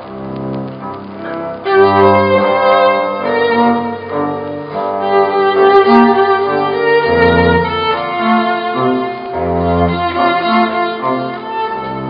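Live acoustic guitar and cello playing an instrumental passage, the cello's bowed notes held long over the guitar. The music fills out and grows louder about two seconds in.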